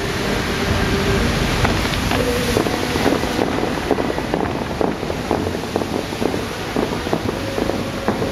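Bellagio fountain water jets shooting up and falling back into the lake: a steady rush and splash of water with irregular crackles, and wind buffeting the microphone.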